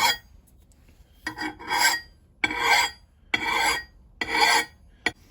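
Coarse file rasping along the steel edge of an axe head in slow, even hand strokes, about five passes, roughly one every second, with a short tap near the end.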